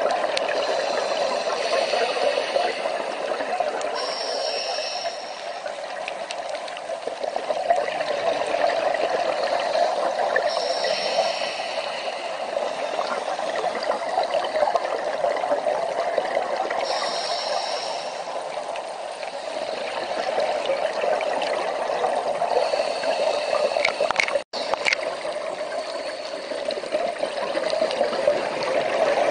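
Underwater recording on a scuba dive: steady water noise, with a diver's regulator breathing and bubbles hissing in bursts about every six seconds.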